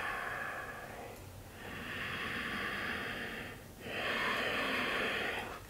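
A woman breathing slowly and audibly in a held yoga stretch: two long breaths, one right after the other, starting a little over a second in.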